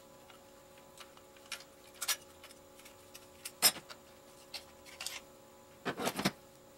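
Scattered sharp clicks and taps of small parts and tools being handled while an airsoft gearbox is taken apart, the loudest a little past halfway and a quick cluster near the end. A faint steady hum runs underneath.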